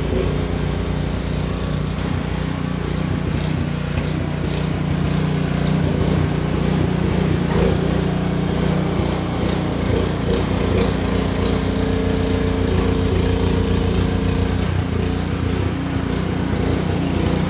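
Small gasoline engine of a snowblower running steadily as a driveway is cleared of snow.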